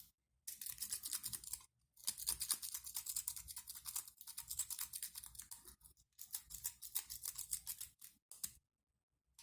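A worm rake being raked in and out of the keyway of a Boxer 40 mm pin-tumbler padlock under tension, making rapid scratchy clicks as it scrapes over the pins. There are three long runs with short pauses between.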